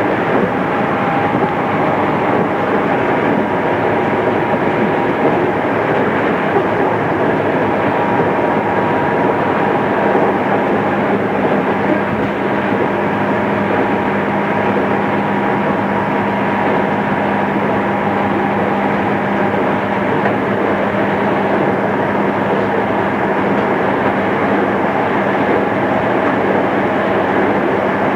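Interior running sound of a JR East 211 series electric multiple unit at speed: steady wheel and motor noise, with a low steady hum coming in about a third of the way through. The sound is dull and lacks treble, as on a cassette-tape recording.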